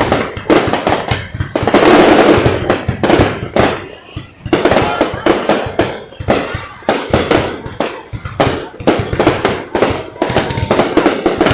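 Fireworks going off in rapid, irregular bangs, several a second, with a dense stretch of crackling about two seconds in.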